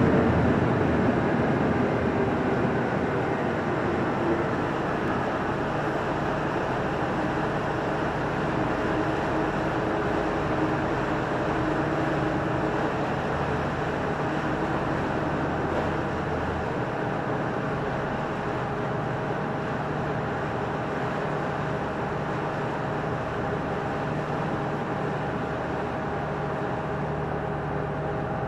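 Steady drone of a Thames Clipper river bus's engines heard aboard on its open deck, a constant hum with a held tone over a rushing wash of water and wind.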